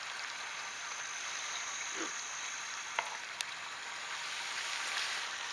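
Steady outdoor hiss, with a faint thin high tone that fades out a little before the middle, a brief low sound about two seconds in, and two short clicks around three seconds.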